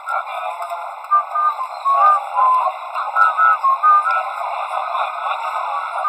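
People's voices calling and chatting on and around the court, thin and warbling from heavy distortion in the recording.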